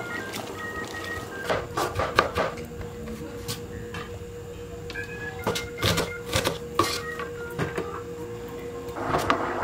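Kitchen knife chopping garlic and red onion on a wooden cutting board: two runs of quick, sharp chops, with soft background music under them.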